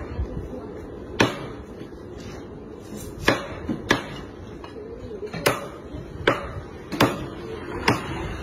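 Meat cleaver chopping cooked meat on a thick round wooden chopping block: about seven sharp chops at an uneven pace, roughly one a second.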